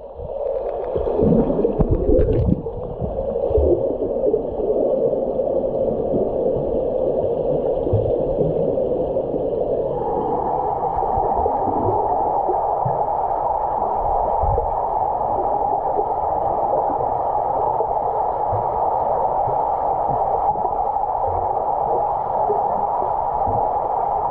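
Swimming-pool water heard from under the surface: a steady, muffled hiss and hum, with gurgling and low knocks of moving water in the first few seconds.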